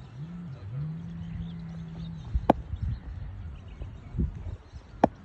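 Cricket bat striking the ball twice in net practice: two sharp cracks about two and a half seconds apart, the first about halfway through and the second near the end.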